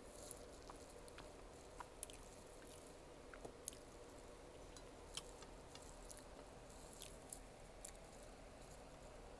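Faint close-up chewing and mouth sounds of someone eating cake, with scattered small clicks over a low steady hum.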